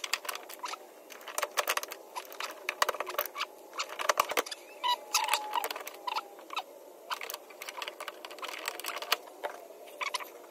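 Bulb sockets being handled and twisted into the back of a Holden VK Commodore's tail light housings: a run of irregular small clicks, scrapes and rattles of plastic and metal, with a short squeak about five seconds in.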